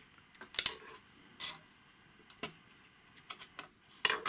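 A handful of sharp metallic clicks and taps with quiet gaps between them: one stronger click about half a second in and a louder cluster near the end. They come from a screwdriver and the steel needle plate of an old Singer sewing machine as the plate's screws are undone and the plate is lifted off.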